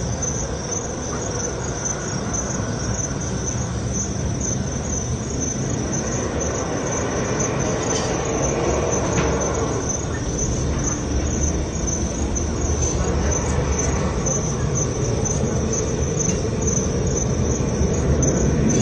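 Steady low rumble of aircraft engines, growing slightly louder toward the end, with crickets chirping steadily.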